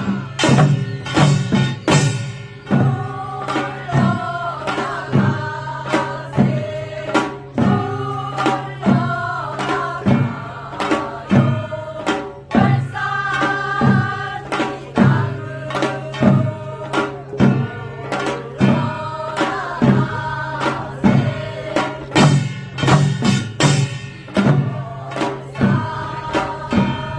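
Korean folk music: a sung or played melody over a low steady drone, with a drum struck in a steady beat about one to two times a second.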